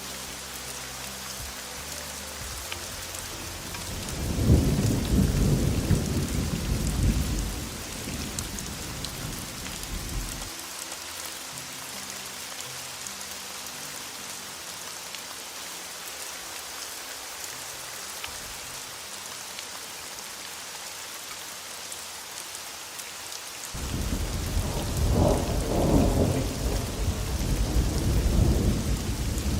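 Steady heavy rain with two rolls of thunder: one starts about four seconds in and rumbles for several seconds, and another begins near the end.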